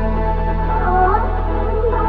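Ambient background music: held low bass notes under a slow, wavering melody.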